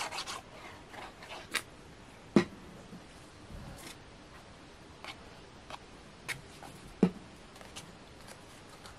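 Light handling noises of papercraft work: a short run of quick scratchy strokes fading out at the start, then scattered small clicks and taps of card and a glue bottle on a cutting mat, with two sharper knocks about two and a half and seven seconds in.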